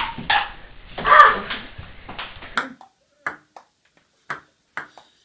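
Ping-pong ball clicking on a table tennis table. There are a couple of hits in the first second or so, over room noise, then about six sharp, separate bounces at uneven intervals in the last three seconds.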